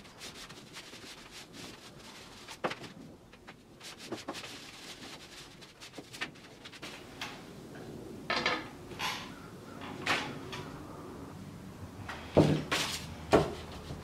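Wooden drum hoops being handled and set down at a workbench: scattered light knocks and clatters, growing louder in the second half, with the two strongest knocks near the end.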